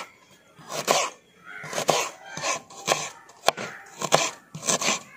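Knife slicing and chopping fresh ginger on a cutting board: a crunch through the root and a tap of the blade on the board, repeated roughly once a second, with a couple of sharper knocks.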